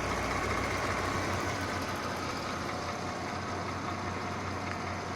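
Mercedes-Benz GLK 350's 3.5-litre V6 petrol engine running steadily with a clattering noise from the engine.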